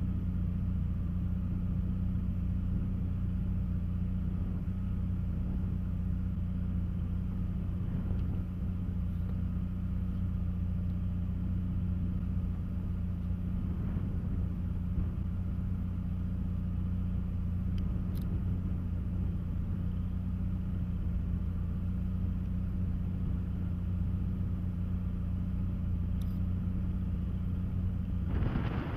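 A vehicle engine running at a steady speed, a constant low drone with road or wind noise. Near the end the drone stops under a brief louder burst of noise.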